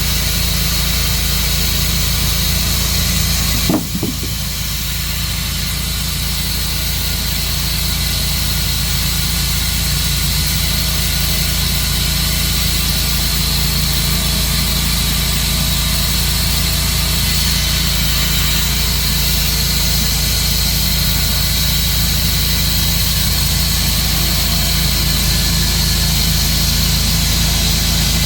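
Tru-Cut sawmill's engine running steadily, with a single short knock just under four seconds in.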